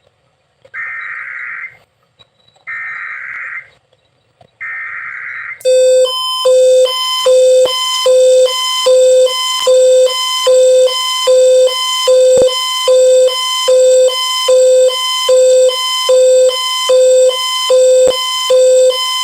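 Emergency Alert System alert as relayed on AM radio: three short screeching digital data bursts (the SAME header) about a second apart, then a loud attention signal that pulses on and off about three times every two seconds, announcing an AMBER Alert.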